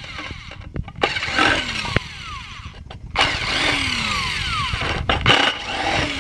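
A power screwdriver running in two bursts, about a second long and then about three seconds long, backing out the Phillips screws that hold the metal base of an electric hot plate together.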